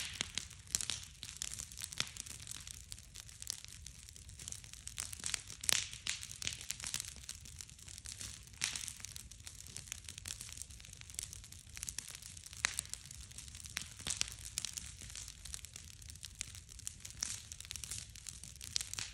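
Large bonfire of stacked split wood crackling, with frequent sharp pops at irregular intervals over a steady low rumble.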